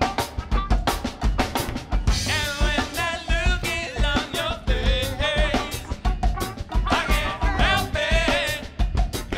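Live band playing a funk song: a steady drum-kit beat with bass and electric guitar. Sung vocals come in about two seconds in, with another sung phrase near the end.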